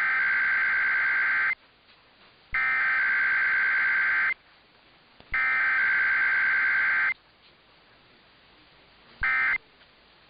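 Emergency Alert System SAME digital data bursts: three long bursts of raspy two-tone data with about a second's gap between them (the header sent three times), then two short bursts near the end (the end-of-message code). Header and end-of-message go out back to back with no attention tone between them, typical of a Required Weekly Test.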